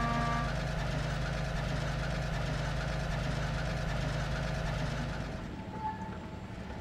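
Diesel locomotive engine running with a steady low rumble, fading out about five seconds in. A held music chord ends just after the start.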